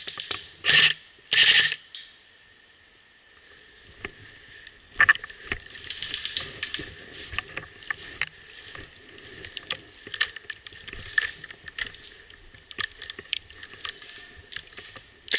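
Two short bursts of airsoft gunfire about a second apart, then rustling and footsteps on leaf litter with irregular clicks and rattles of gear as the player moves through the undergrowth.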